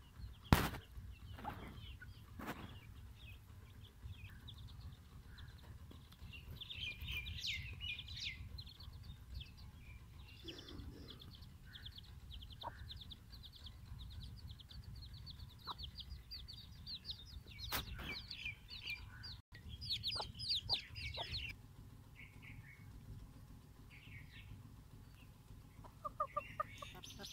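Chickens: chicks peeping in long, fast, high-pitched runs through the middle, and a chicken clucking a few times near the end. A few sharp knocks near the start, the loudest just under a second in.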